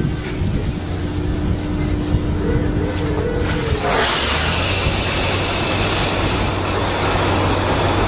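A heavy vehicle running with a steady hum, then a sudden loud rush of hissing noise from about three and a half seconds in that carries on.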